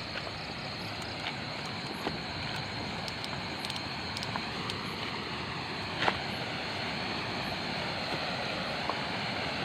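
Steady hiss of outdoor night ambience, with a faint high steady tone and a few sharp clicks, the strongest about six seconds in.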